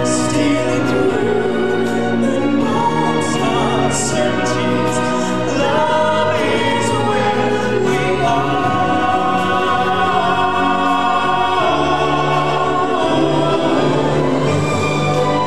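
Show music: a choir singing held, wavering notes over an instrumental backing with a steady low bass.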